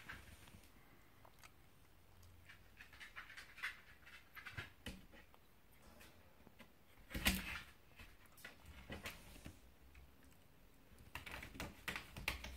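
Ten-day-old Jack Russell Terrier puppies nursing: faint, irregular suckling and smacking clicks, with one louder bump about seven seconds in.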